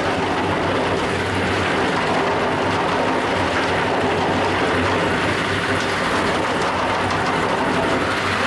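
Concrete floor grinding machine running steadily: a loud, even grinding noise over a constant motor hum.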